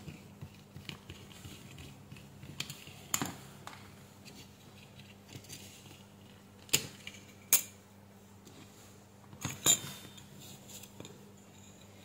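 Small, separate clicks and taps of a plastic remote-control case and its circuit board being handled, as screws are undone and the board is pried out of the housing. The two loudest clicks come around the middle, then a close pair a little later.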